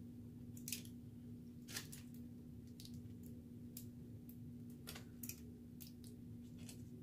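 Faint, irregular crinkles and clicks of food being handled in foil wrappers, over a steady low hum.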